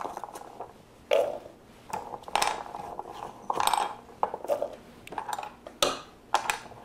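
Pieces of cut asparagus dropped into a plastic mixing bowl and tossed around by hand, making a run of irregular light knocks and rattles.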